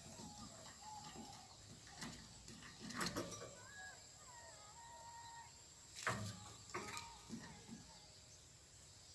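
Faint, near-quiet background with soft knocks about three and six seconds in, a few weaker ticks after that, and faint thin high notes in between.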